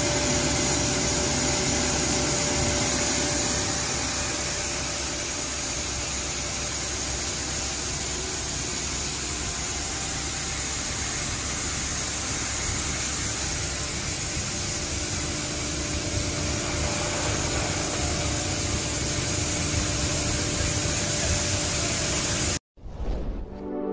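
Continuous running noise of a PP/PE film double-stage pelletizing line: a steady, dense hiss with a faint constant tone. It cuts off suddenly near the end, and soft music begins.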